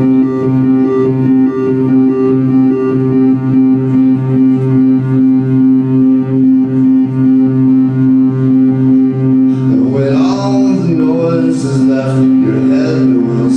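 Live band music: a steady low drone held on one chord, pulsing in even beats. About ten seconds in, gliding higher notes and bright hissy hits join it.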